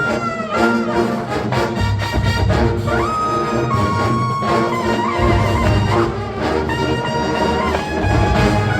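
College marching band's brass section playing an early-1980s funk arrangement over a steady beat, with a note sliding up about three seconds in.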